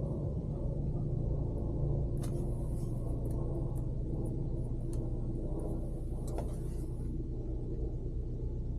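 Steady low rumble of a car driving, with a few faint clicks in the middle.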